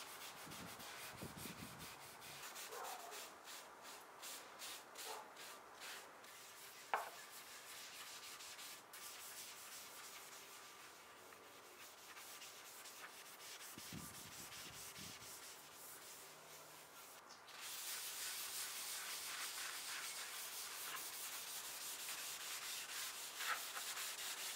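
Faint rubbing strokes of an applicator brush spreading liquid oil stain across a mahogany-veneered tabletop, with a short click about seven seconds in. About two-thirds of the way in it gives way to a steadier rubbing of a rag wiping the stain.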